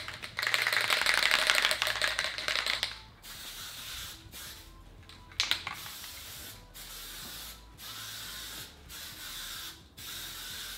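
Aerosol spray-paint can spraying: one long hiss of about three seconds, then a run of quieter bursts about a second each with short breaks between them, and a sharp click about halfway through.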